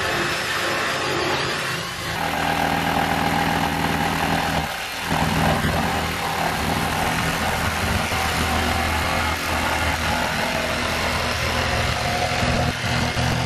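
Cordless oscillating multi-tool plunge-cutting through a plywood panel, a steady buzz that starts about two seconds in and breaks off briefly near five seconds before carrying on.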